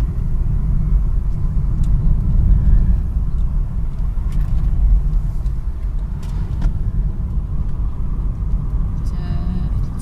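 Road noise inside a moving car's cabin: a steady low rumble of engine and tyres on the road, with a few faint clicks.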